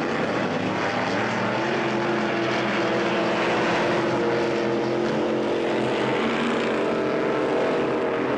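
Several racing powerboats' engines running flat out, a steady, loud drone whose pitch shifts slowly as the boats pass and draw away.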